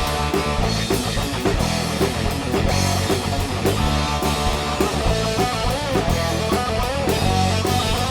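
A rock band playing live, with electric guitar, bass and drum kit in an instrumental passage with no vocals; a guitar line bends in pitch over the steady beat.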